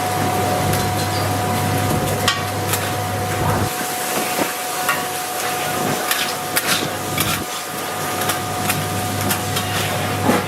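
Irregular sharp knocks and clatter of cooking utensils at a street food stall, over a steady mechanical hum with a constant tone. A low part of the hum drops out about four seconds in.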